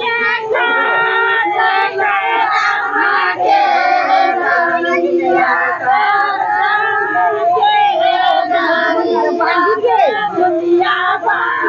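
Girls and women singing a Karma puja song together, several high voices overlapping in long, wavering held notes.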